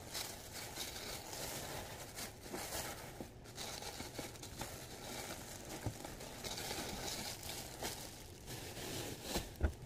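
Tissue paper and plastic wrapping crinkling and rustling as they are handled and pulled out of a box, with a brief bump near the end.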